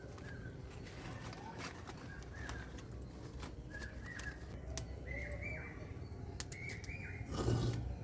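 Small birds chirping again and again in short, arched calls, with scattered light clicks and a brief rush of noise near the end.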